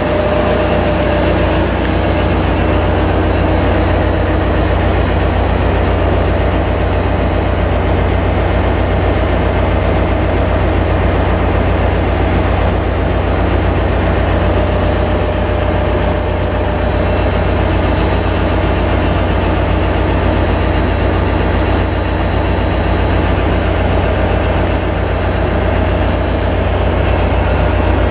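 Caltrain diesel locomotive idling at close range while standing at the platform: a steady low engine rumble that holds even.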